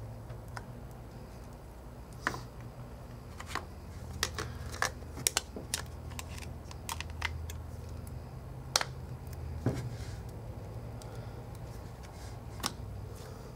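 Irregular small clicks and taps of tools and iPhone 4 parts being handled during reassembly, over a low steady hum.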